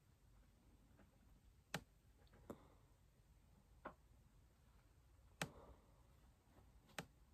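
Near silence with five short, sharp clicks spread irregularly through it.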